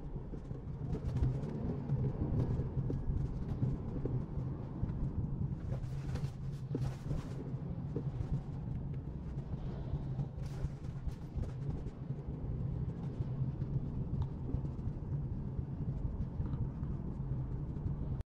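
Cabin noise of a 2017 Mercedes-Benz C180 driving at low speed: a steady low engine hum with tyre and road noise and a few faint knocks.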